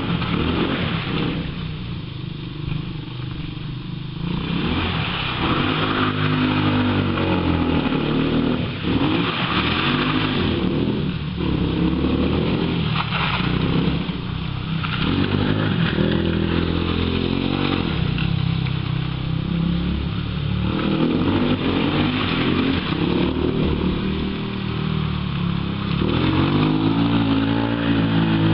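ATV engine revving up and dropping back again and again, its pitch rising and falling every few seconds as the quad is driven hard around a track.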